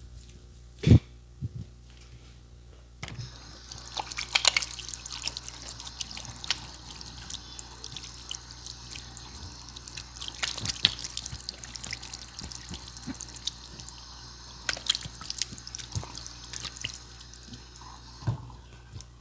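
Water running and splashing steadily for most of the stretch, with small drips and clicks, starting and stopping abruptly; a single sharp thump about a second in.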